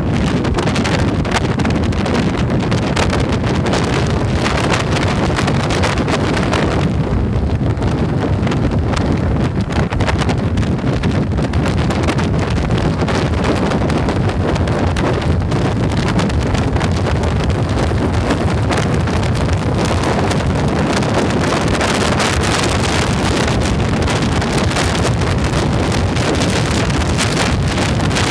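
Wind rushing over the microphone of a camera on a moving motorcycle, over the low, steady sound of the bike's engine and tyres at cruising speed. The rushing softens for a few seconds about seven seconds in.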